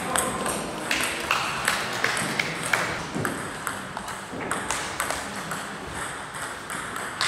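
Table tennis rally: the ball clicks sharply off the bats and the table in quick, irregular succession.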